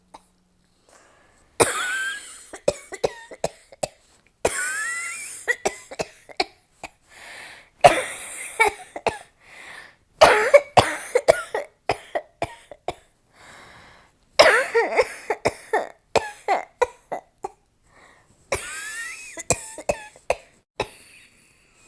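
A woman coughing in repeated fits, about six bouts of several harsh coughs each with shorter coughs between, the coughing of a cold and an asthma attack.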